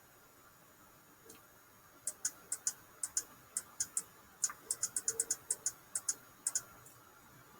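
A run of quick, irregular sharp clicks, about two dozen in four and a half seconds, starting about two seconds in.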